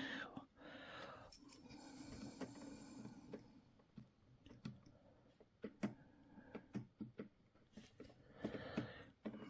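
Faint scattered clicks and small handling noises from a radio-control transmitter being worked on by hand, as its throttle stick and gimbal screw are adjusted.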